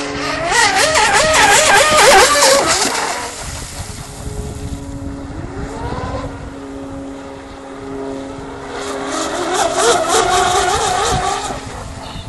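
Twin-motor 12S fast-electric RC drag hydroplane speeding across the water: a loud motor whine whose pitch wavers up and down with spray hiss, fading after about three seconds. A rising whine follows around six seconds, then another loud wavering pass from about nine to eleven seconds.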